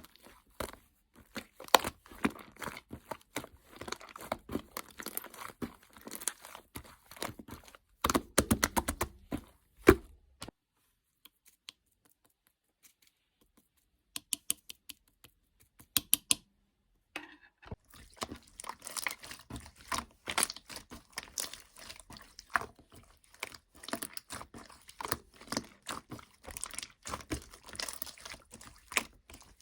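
Slime being squished and stretched by hand: dense runs of small crackling clicks and pops, with a mostly quiet pause of several seconds midway.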